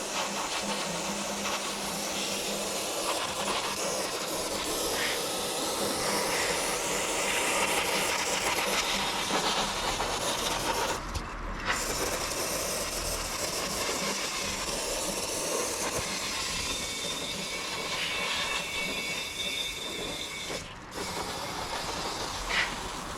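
Aerosol brake parts cleaner spraying in long hissing bursts onto a brake disc rotor, with two brief pauses about halfway through and near the end.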